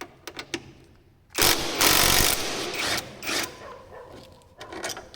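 Scooter repair work: scattered clicks and knocks of tools and parts being handled, with a loud rattling burst lasting about a second in the middle as a part is taken off.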